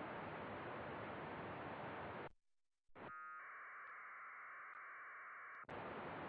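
VHF FM radio receiver with its squelch fully open, giving a steady hiss of receiver noise. About two and a half seconds in, the hiss cuts out briefly, then a 1200-baud AFSK packet burst plays, a warbling band of data tones lasting about two seconds. The hiss returns near the end.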